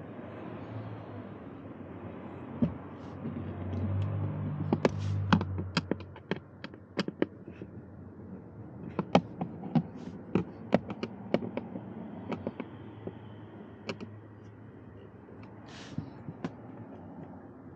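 Hand screwdriver working the screws of a Hyundai ix35 A/C blower motor's plastic housing under the dashboard: irregular sharp clicks and taps of metal on plastic, over a low steady hum.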